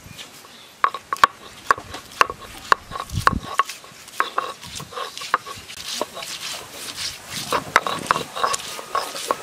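Garlic cloves being crushed with a heavy block on a grinding slab: sharp knocks about twice a second, then a busier stretch of knocking and scraping as the block is worked over the crushed garlic.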